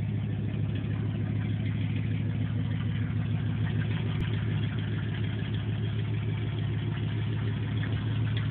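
A 1990 Dodge Ramcharger's 318 V8 idling steadily, an engine the owner describes as very tired.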